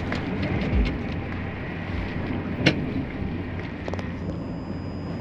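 Train running: a steady rumble with wind noise on the microphone and one sharp click a little past halfway. A faint high whine joins near the end.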